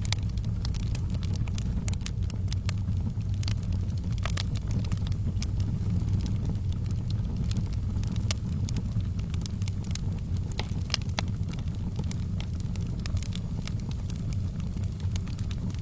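Wood fire burning in a fireplace: irregular sharp crackles and pops over a steady low rumble.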